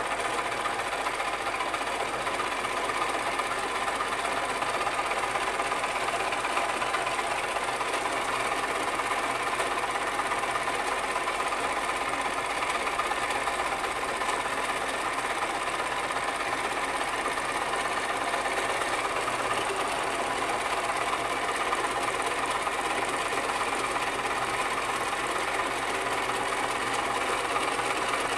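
Sewing machine running continuously at a steady speed, stitching without a pause.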